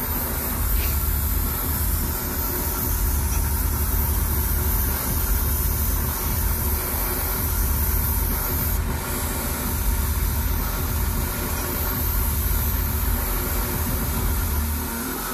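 Airbrush rig running steadily: a compressor motor hums low while air hisses continuously through the airbrush.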